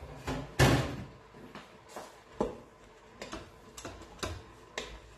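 A loud knock about half a second in, then a wooden spoon knocking against the stainless steel inner pot of an Instant Pot as chopped vegetables are stirred, roughly two knocks a second.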